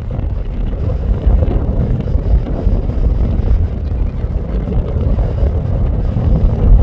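Strong wind buffeting the microphone: a loud, fluctuating low rumble with no letup.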